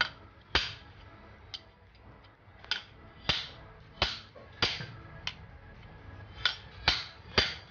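A steel pipe knocked down again and again onto a new 6004 ball bearing, driving it onto a wet grinder's drum shaft. There are about ten sharp metallic knocks, irregularly spaced half a second to a second apart, with a short pause after the first few.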